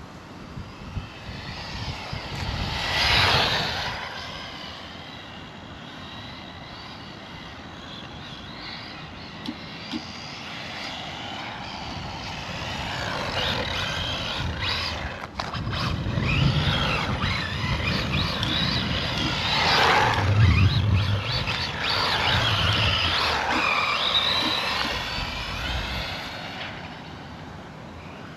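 Electric RC rally car driving, its motor and gears whining up and down in pitch as it speeds up and slows. A loud pass comes about three seconds in, and busier, louder driving fills the second half.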